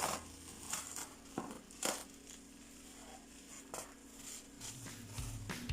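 Scattered clicks, taps and rustles of hair dryer packaging being handled and opened, with a faint steady hum underneath. Music with a drum beat comes in near the end.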